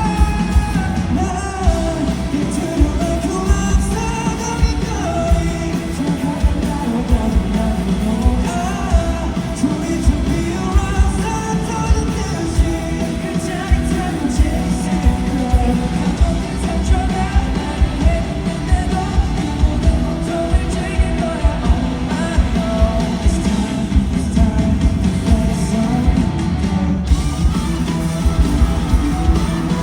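A rock band playing live, with singing over electric guitar and a steady, driving drum beat.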